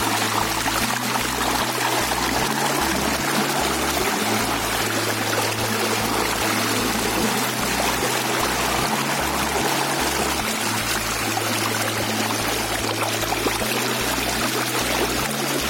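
Shallow stream water rushing and splashing steadily over a hand holding a waterproof action-camera case in the current. A low background music line with a regular beat runs beneath it.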